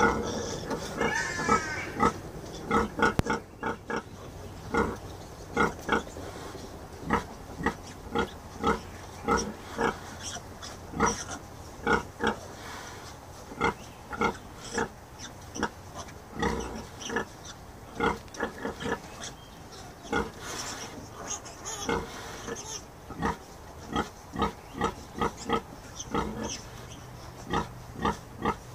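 Yorkshire sow grunting in a steady rhythm of short grunts, about one to two a second, while her piglets nurse. A short higher squeal comes about a second in.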